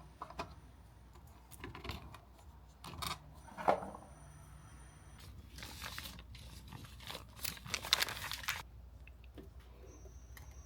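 New-parts packaging being handled and unwrapped: a few sharp clicks and knocks, then several seconds of wrapping rustling, crumpling and tearing.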